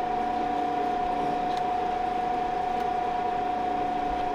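Pecron portable power station's cooling fans running steadily under a heavy solar charge of about 1,850 watts, with a steady high whine over the fan noise.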